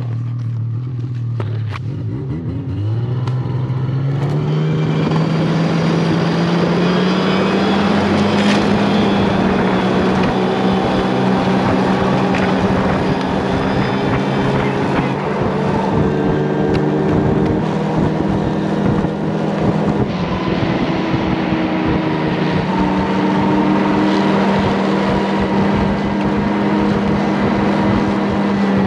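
Snowmobile engine speeding up, its pitch climbing over the first several seconds, then running steadily at speed.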